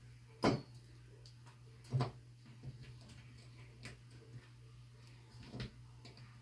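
Light metallic clicks and ticks of a small hex key working the set screw in the underside of a metal towel bar bracket, tightening it. Four sharper clicks stand out, the loudest about half a second in, over a faint steady hum.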